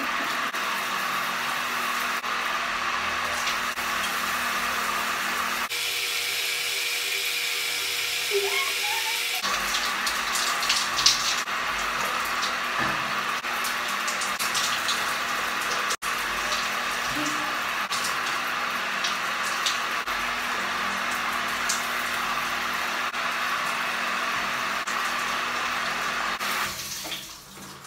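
Shower water running steadily, spraying in a small tiled shower stall. The sound changes briefly a few times where the recording is cut.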